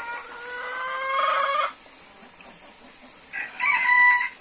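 Rooster crowing: one long crow that rises slightly in pitch for almost two seconds, then after a pause a second, higher-pitched crow starts near the end.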